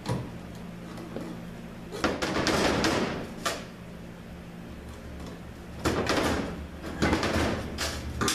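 Heavy metal parts of a 48RE automatic transmission being worked on: a knock, then two spells of scraping and clanking as the retaining clip is spread and the overdrive section is worked off the case.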